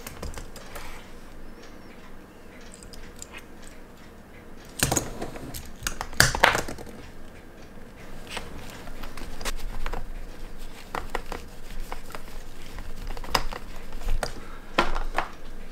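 Irregular clicks and knocks of a stainless-steel watch with a link bracelet being handled and positioned on a watch cushion, with a couple of louder knocks about five and six seconds in.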